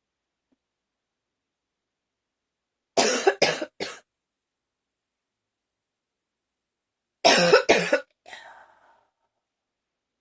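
A woman coughing in two loud fits. The first is three quick coughs about three seconds in. After a pause of a few seconds comes a second pair of coughs, trailing off into a short, fainter sound.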